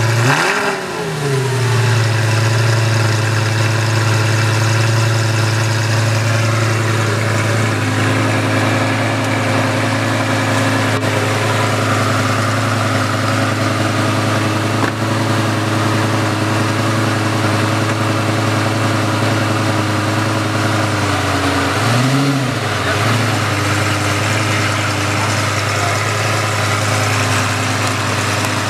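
Lamborghini Gallardo V10 just after start-up, its revs falling away from the start-up flare in the first couple of seconds and settling into a steady idle. The idle steps down a little about eight seconds in, and about twenty-two seconds in there is one short blip of the throttle.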